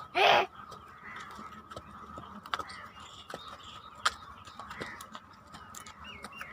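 One short, harsh bird call near the start, over a steady thin high-pitched drone with scattered faint clicks and a few small chirps near the end.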